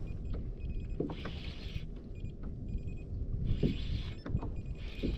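Baitcasting reel being cranked in several short bursts, its gears whirring, as a hooked fish is reeled in. Low wind and water rumble runs underneath.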